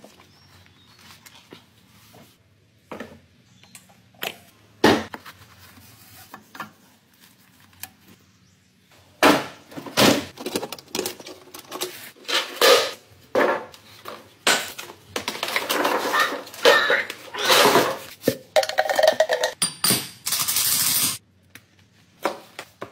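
Irregular metallic clanks, clicks and knocks of tools and parts being handled: scattered at first, then dense and loud through the middle, with a short rasping noise near the end.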